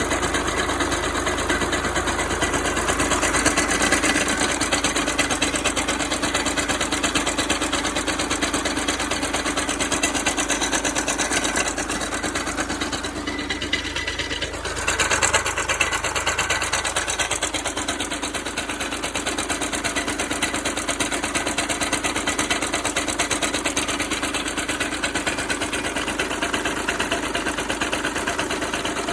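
Volkswagen Passat B6's 2.0 engine idling with a fast, even knocking rattle from the six-speed DSG's flywheel, the knock that the owner attributes to the flywheel. The rattle dips briefly about halfway through, then carries on.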